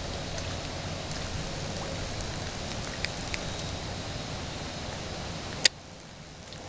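Steady outdoor background noise with a low hum and scattered faint ticks, broken by one sharp click near the end, after which the background drops quieter.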